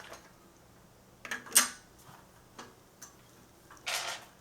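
A few scattered small metal clicks and clinks from a bicycle training-wheel bracket and retaining washer being fitted onto the rear axle, the loudest about one and a half seconds in, with a brief scrape near the end.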